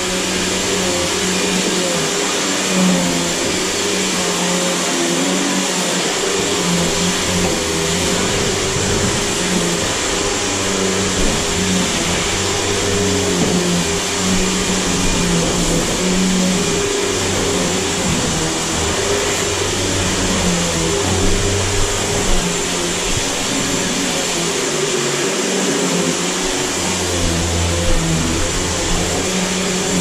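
Riccar 100 upright vacuum cleaner running steadily while being pushed over a hardwood floor: a constant motor whine and rush of air, with small rises and dips in level as it moves.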